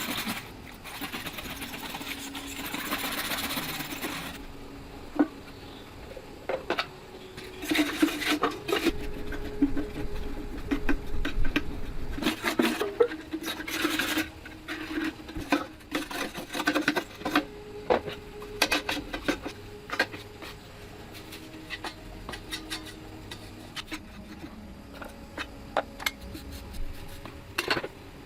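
Hand work on a machine: scraping and rubbing, then a long run of irregular clicks and knocks, over a faint hum that comes and goes.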